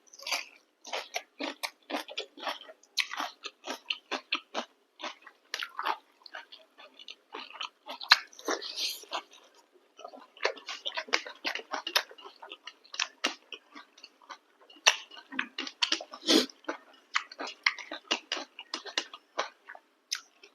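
Close-miked mukbang eating sounds: wet chewing, smacking and biting of chicken curry and chapati, in quick irregular clicks with a brief lull a little before halfway.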